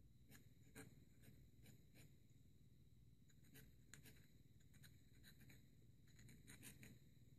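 Faint scratching of a dip pen's metal nib on paper during calligraphy lettering. The short strokes come in irregular groups with brief pauses between them.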